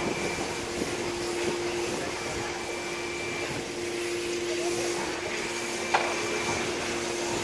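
A steady machine hum with a hiss, and a thin whine that comes and goes; a single sharp knock about six seconds in.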